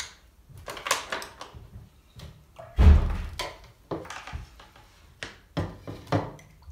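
Paintbrushes, a brush tray and a plastic water pot being picked up and set down on a table: a string of knocks and clatters, with one heavy thump about three seconds in.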